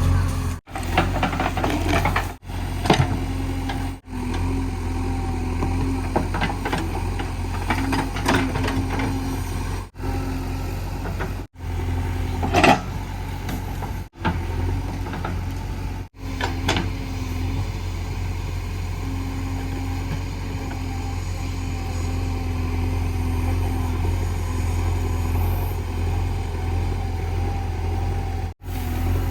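Diesel engine of a JCB 3DX backhoe loader running steadily, with scattered knocks and clanks of the machine at work. The sound drops out briefly several times.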